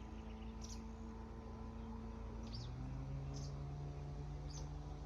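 Birds chirping, short high calls about once a second, over a steady low hum that steps in pitch about halfway through.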